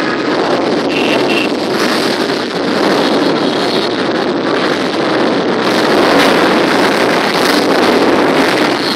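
A line of large cruiser and touring motorcycles riding slowly past one after another, their engines running together in a steady, loud blend.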